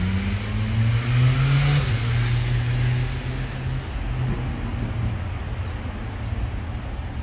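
A car's engine running close by with a low steady hum, loudest in the first two seconds and then easing off.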